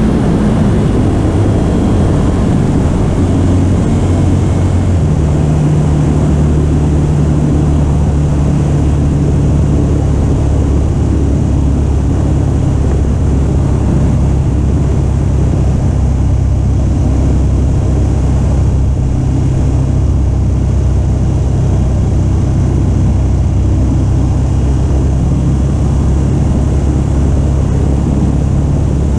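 KTM 1290 Super Adventure S's V-twin engine running under way, heard from the bike, with the wind and road noise of riding. Its note shifts in the first few seconds, then holds steady at cruising speed.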